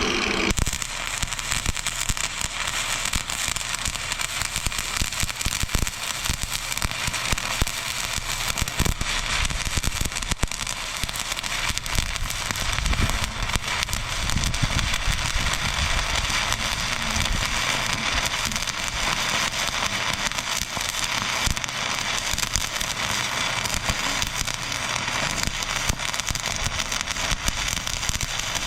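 Stick welding: the arc of the electrode crackling and spitting steadily, without a break, as a weld is run on steel.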